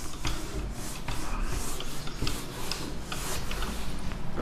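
Whiteboard eraser being rubbed briskly back and forth across a whiteboard, wiping off marker writing in a run of repeated swishing strokes, about two to three a second.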